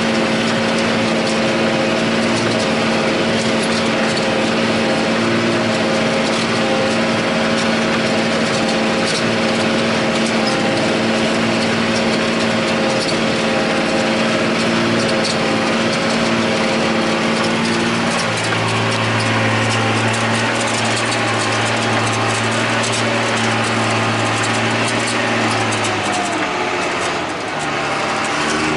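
John Deere 8100 tractor's six-cylinder diesel engine running steadily under load while pulling a disk ripper through the soil, heard from the cab. Its note changes about two-thirds of the way through, and the sound dips briefly and shifts again near the end.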